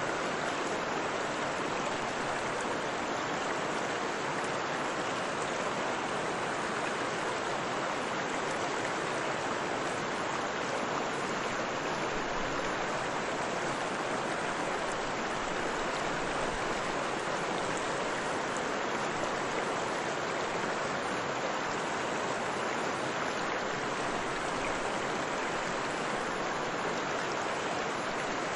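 Steady rush of flowing water from a waterfall and river, an even hiss with no breaks or changes.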